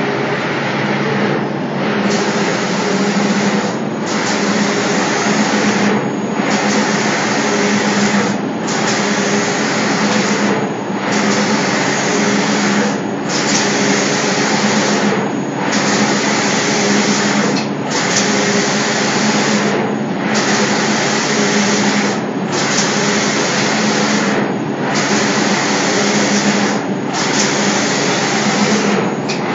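Automatic spray-painting machine for doors: the spray guns hiss in regular passes about two seconds long, each broken by a short pause as the carriage reverses, over a steady machine hum.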